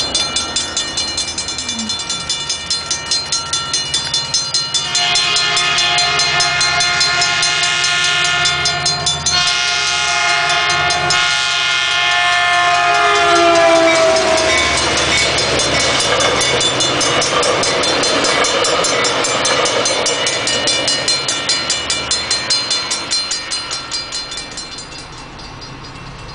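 Metrolink F59PHI diesel locomotive sounding a long horn blast at a grade crossing, its pitch falling as the locomotive passes, then the rumble of the passing train. A crossing bell rings fast and steady under it all.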